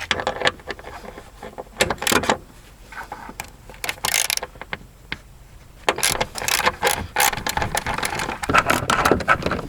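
A 12 mm socket ratchet clicking in several bursts as it undoes the bolts holding a car seat.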